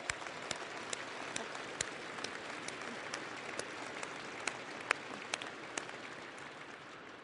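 Large crowd applauding, with many separate sharp claps standing out; the applause dies away near the end.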